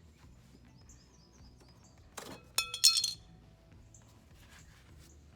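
Small metal parts clinking onto a hard surface: a quick clatter, then a louder clink that rings briefly, with faint high chirps before it.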